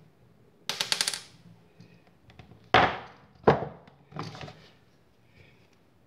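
A quick rattle of about ten sharp metallic clicks, then two loud sharp knocks and a lighter one: an old switch and its wiring being handled against a metal electrical wall box.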